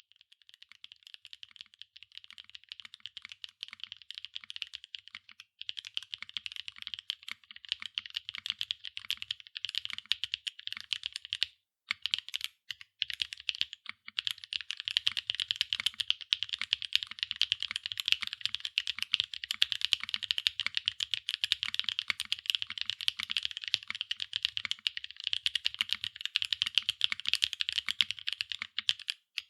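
Steady fast typing on a SAAG65 mechanical keyboard with Jerrzi Rouge linear switches, PBT double-shot keycaps and an aluminium plate with no foam: a dense run of keystrokes, pausing briefly a few times, most of all a little under halfway through.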